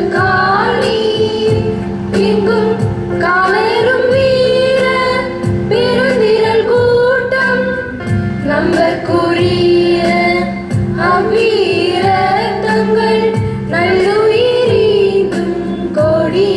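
Music: a female voice singing a melody in phrases over steady instrumental accompaniment with a regular beat.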